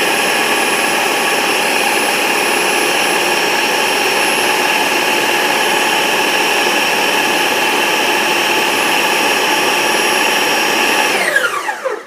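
Food processor motor running steadily at high speed, blending a thick milkshake mix of ice cream, Greek yogurt and strawberry preserves. Near the end it is switched off and its whine falls in pitch as it winds down.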